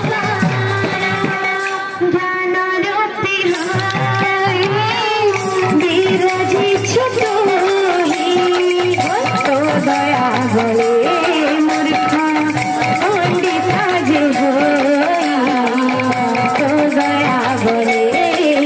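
Live Odia kirtan music: a voice singing a devotional melody through a microphone over the steady beat of a barrel drum.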